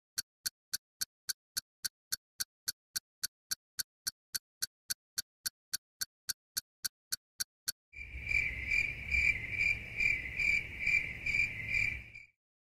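A countdown timer ticking fast and evenly, about four ticks a second, for roughly eight seconds. It ends in an alarm that rings in pulses about twice a second for some four seconds and cuts off suddenly, signalling that time is up.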